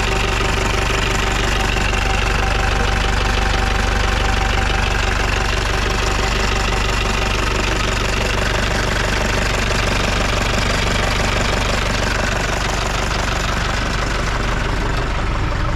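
Mahindra pickup's diesel engine idling steadily, running again on its first start after years of standing unused.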